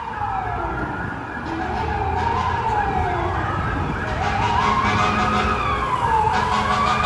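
Several emergency vehicle sirens wailing together, their slow rising and falling tones overlapping over the rumble of heavy vehicles. The sirens grow louder about four seconds in as the fire department apparatus approach.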